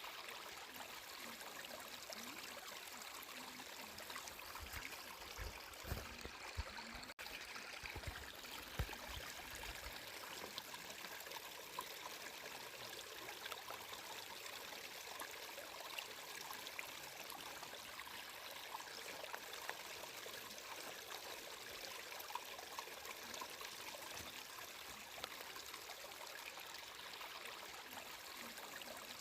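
Flowing water running steadily, a continuous even rush and trickle. A few short low thuds come between about five and ten seconds in.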